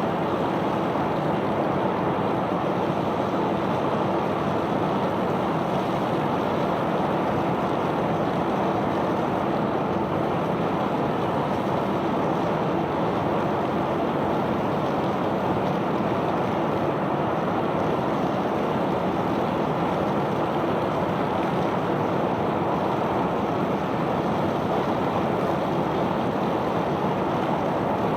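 Steady, unbroken rushing noise of a self-unloading sand barge discharging its sand cargo.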